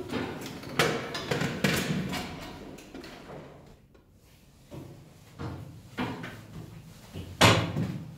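Footsteps climbing a steel stairway: a series of heavy, uneven steps and knocks on the metal treads, with a short pause in the middle and the loudest knock near the end.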